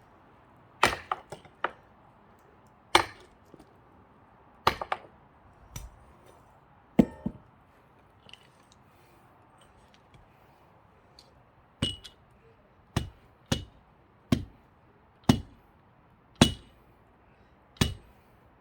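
Repeated sharp metal-on-metal blows on a steel axe head wedged in a thick pine log, each a hard clink with a brief ring. The blows come in two runs with a pause of about four seconds between them.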